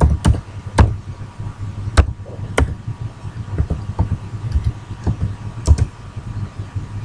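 Computer keyboard keys tapped one at a time, slow and irregular, as a command is typed, over a low steady hum.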